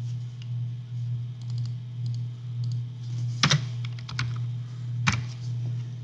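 Typing on a computer keyboard: scattered keystrokes, with two louder strikes about three and a half and five seconds in, over a steady low hum.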